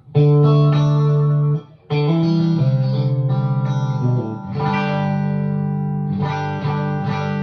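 Electric guitar chords played through a Suhr Badger amplifier, about four chords each left to ring. The signal runs through an 18-foot cable and a large pedalboard with all pedals bypassed, with a Suhr buffer in front.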